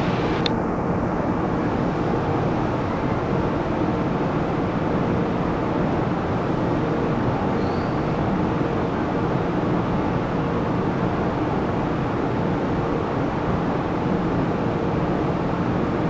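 Steady, even rumbling background noise on a station platform with a faint constant hum, and a single click about half a second in.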